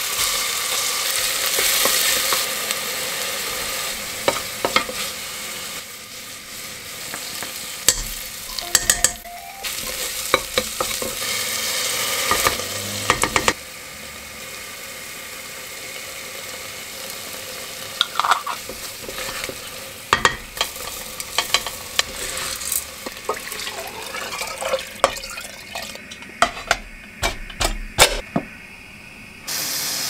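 Chopped onion dropped into hot oil in a stainless steel pot, sizzling at once, then frying with tomato while a spoon stirs and clinks against the pot. The sizzle is loudest at first and settles quieter from about halfway through.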